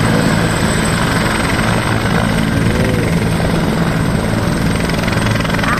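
Helicopter running on the ground with its main rotor turning: a loud, steady drone with a low hum that does not change.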